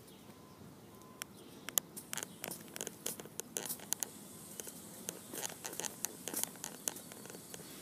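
Faint, irregular scattered clicks and rustles, like close handling noise on a phone microphone held near the grass.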